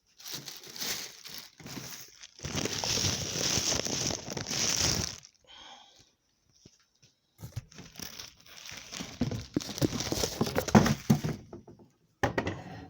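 A cardboard box and its packaging being opened and handled by hand: rustling and crinkling in two long stretches with a quiet pause between them, and a short burst near the end.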